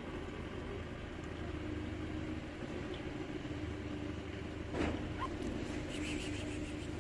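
Street traffic: a motor vehicle's engine runs steadily, with a short, sharp sound about five seconds in.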